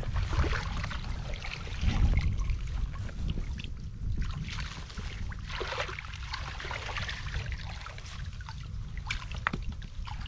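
Shallow water sloshing and trickling in uneven spurts, over a low rumble, with a few sharper splashes or drips near the end.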